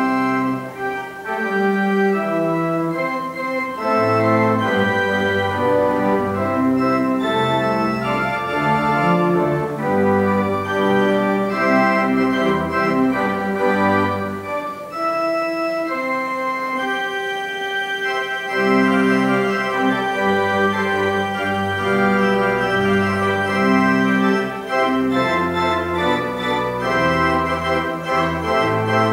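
Organ music: sustained chords over a slowly moving bass line, the notes changing every second or two.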